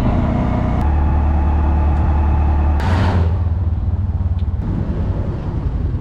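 Tuk-tuk's small engine running as it drives along, its note dropping about a second in. A short hiss comes near three seconds, and the engine then falls to a lower, uneven idle as the tuk-tuk slows to a stop.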